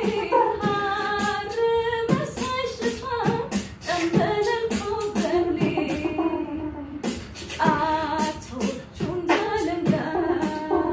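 A woman singing an Ethiopian song a cappella over a man's beatboxed rhythm of mouth-made kicks and snares.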